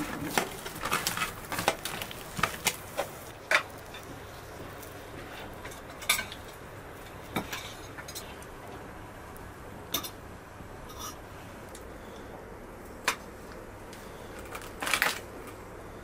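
Cutlery and dishes clinking. First comes a quick run of clinks and scrapes of a knife on a metal tray as roast lamb is pulled apart, then single clinks of spoons on plates and bowls every few seconds as people eat.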